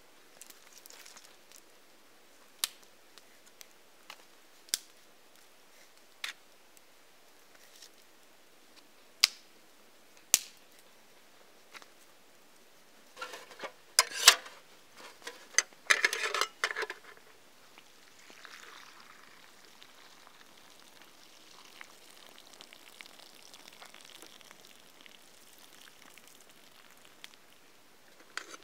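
Campfire popping with single sharp cracks every couple of seconds, then a metal pot scooped and pressed into snow with a burst of crunching about halfway through, fading to faint soft crunching of snow.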